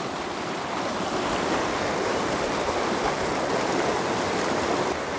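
A fast mountain stream rushing through whitewater rapids over rocks, a steady unbroken noise.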